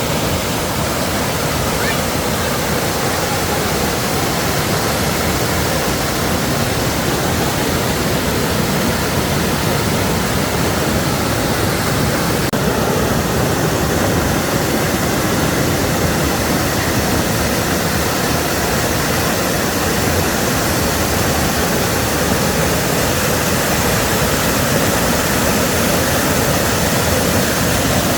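Waterfall water rushing, a loud, steady, even noise.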